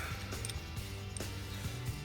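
Background music with sustained low notes, with a few faint clicks over it.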